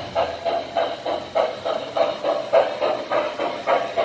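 Lionel New York Central Commodore Vanderbilt Hudson model steam locomotive's electronic sound system giving a steady steam chuff, about three chuffs a second, as the engine pulls its train.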